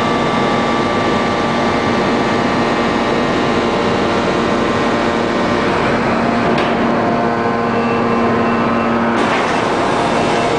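A 1250-ton open-die forging press running with a loud, steady machinery hum carrying several steady tones. About six and a half seconds in, the high hiss drops away, and it cuts back in sharply about nine seconds in.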